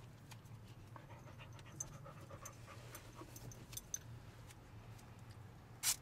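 A Great Dane panting softly close by, with a few faint clicks over a low steady hum. Just before the end comes a short, loud rip of adhesive tape being pulled from the roll.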